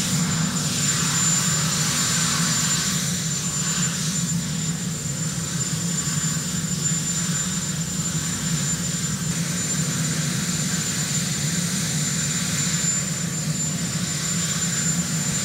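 Sikorsky VH-3 Sea King helicopter's turbine engines running on the ground, a steady high-pitched whine over a constant low hum.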